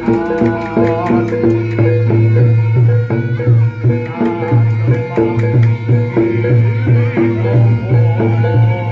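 Javanese barongan accompaniment music: hand drums and gamelan percussion playing a fast, driving rhythm over repeated pitched notes.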